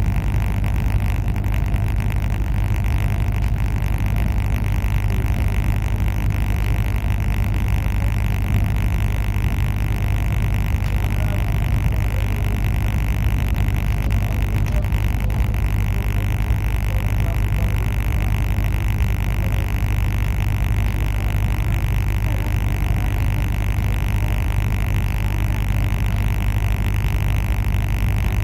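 Steady running noise of a moving passenger train heard from on board: a constant low rumble with a hiss above it, unchanging, with no distinct rail-joint clicks.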